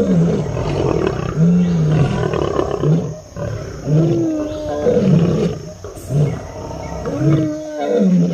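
Lion roaring: a run of deep, repeated roars about one a second, like the grunting series of a roar bout. Two higher, wavering calls sound over them about halfway and near the end.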